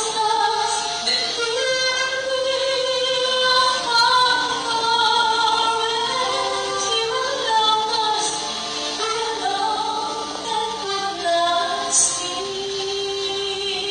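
A woman singing a slow gospel song through a microphone, holding long notes.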